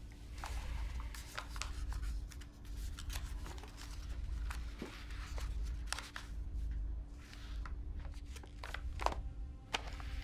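Paper rustling with short crisp rustles and clicks as a manila envelope and its contents are handled and leafed through, over a low steady hum.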